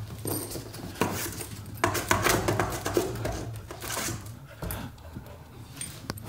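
Dog pawing and nosing at a cardboard box packed with plastic packing material: cardboard scraping and plastic crinkling in a run of scratchy rustles and clicks, busiest between about one and four and a half seconds in.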